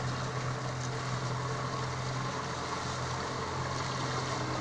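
Boat engine running at a steady low hum, with an even hiss over it.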